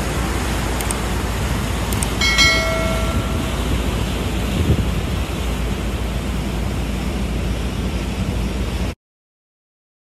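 Steady rush of an oil tanker's propeller wake churning astern at full speed, with wind on the microphone and a low rumble underneath. A short ringing tone sounds about two seconds in. The sound cuts off abruptly near the end.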